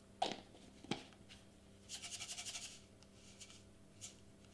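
A small lidded container of tiny foam balls shaken quickly to mix the colours, a rapid dry rattle lasting under a second, with shorter shakes after it. Two knocks come first as the container is handled.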